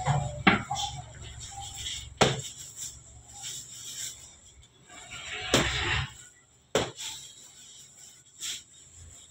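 A few sharp knocks as dough is handled on a floured steel worktable, over a low steady hum that stops about six seconds in.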